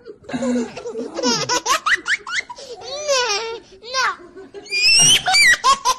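Laughter in quick runs of short, high-pitched bursts, loudest about five seconds in.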